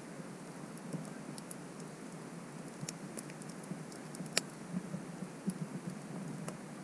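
Wood campfire crackling: irregular sharp crackles over a steady low rush of flame, the sharpest snap about four and a half seconds in.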